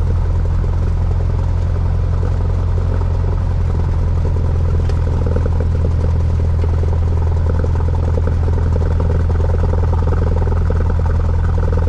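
Cessna light aircraft's piston engine and propeller running steadily at low taxi power, heard inside the cabin.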